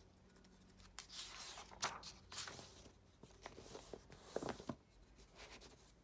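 Paper pages of a large printed workbook being turned and smoothed flat by hand: a run of soft rustles and light slaps between about one and five seconds in.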